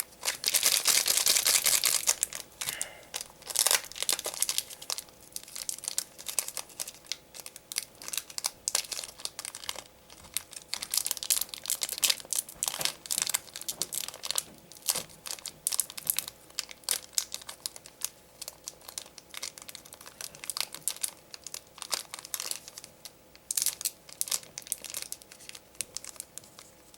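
A foil trading-card booster pack being torn open, a burst of tearing in the first two seconds, then on-and-off crinkling of the wrapper and cards as they are handled.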